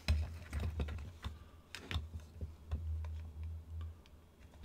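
Light, irregular clicks and taps of small hard parts being handled: a ground-down metal peg being tried against the hole in a horn powder horn.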